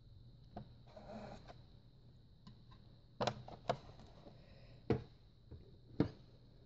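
A soft rustle of seam binding ribbon drawn across an ink pad, then a few light sharp clicks and taps as the plastic ink pad is handled, closed and set down.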